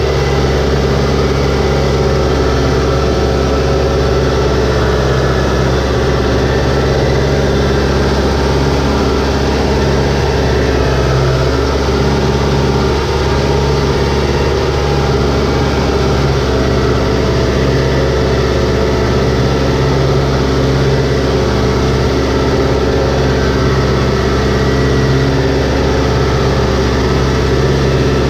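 Compact farm tractor's diesel engine running steadily at a constant pitch, heard from the driver's seat, with the tyres churning through flooded mud and water.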